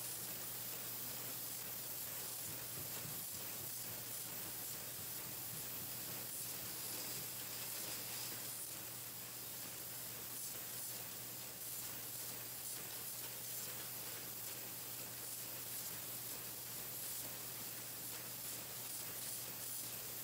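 Pencil-painting machine running: a steady hiss with an even low hum underneath.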